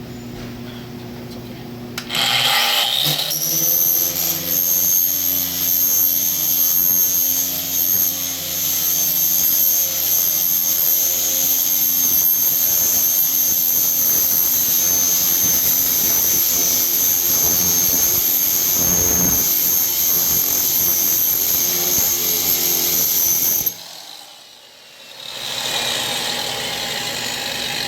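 Grinder spinning a shrinking disc against the steel quarter panel, heating the high spots by friction to shrink them. A steady high whine starts about two seconds in and cuts off suddenly some twenty seconds later.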